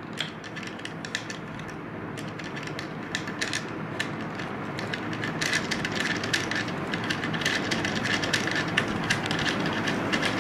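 Hand assembly on a plywood CNC carriage: irregular light clicks and scrapes of wood and small metal parts as a bolt is fitted, over a steady background hiss.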